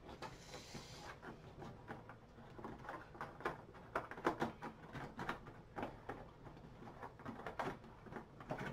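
Irregular light clicks, taps and rustles of plastic game miniatures and packaging being handled and pressed into their box tray.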